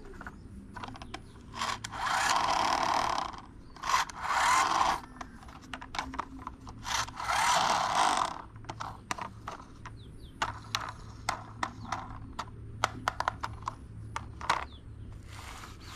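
Small toys and their packaging being handled: three rubbing, scraping bursts of about a second each, among many quick clicks and taps.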